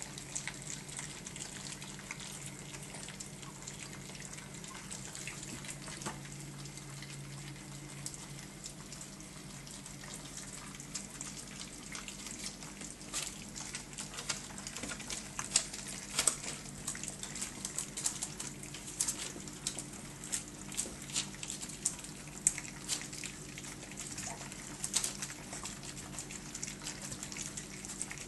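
A litter of four-week-old Staffordshire bull terrier puppies eating wet food together from one dish: continuous wet lapping and smacking, with sharp clicks that grow more frequent from about halfway through. A steady low hum runs underneath.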